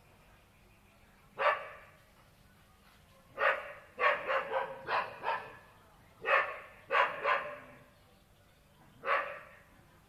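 Dog barking repeatedly, about eleven sharp barks in bunches: one, then a quick run of six, then three, then one more near the end.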